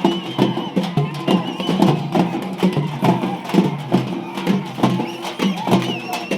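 Music with a fast, dense drum beat under steady low tones and a wavering high melody.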